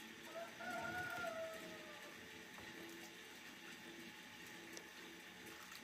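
A rooster crows once: one drawn-out call of about two seconds, starting just after the beginning and dropping in pitch at its end.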